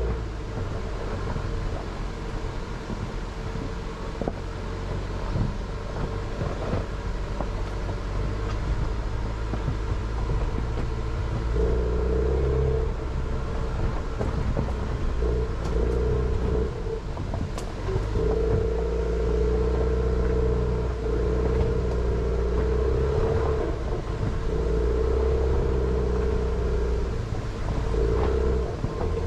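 Jeep Renegade driving slowly over a rocky unpaved forest road. The engine runs with a low hum that grows louder in stretches, and the tyres crunch over loose stones with frequent small knocks.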